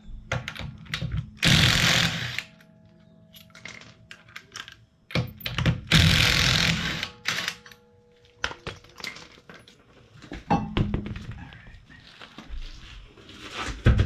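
Lug nuts being taken off a car wheel with a tool: two loud bursts about a second long, about a second and five seconds in, amid scattered metallic clicks and knocks.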